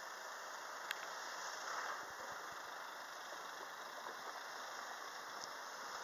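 Steady hum of road traffic, cars idling and moving off over a level crossing once the barriers have lifted, with a single sharp click about a second in.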